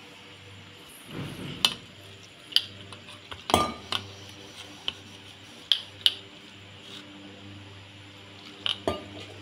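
Onion and gram-flour pakoda batter being mixed by hand in a steel bowl, with a series of sharp metallic clinks against the steel bowl and water pot.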